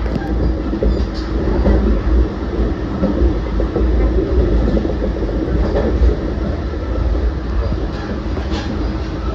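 JR Central 383 series electric limited express train running at speed: a steady, loud low rumble of wheels on rail, with a few faint clicks.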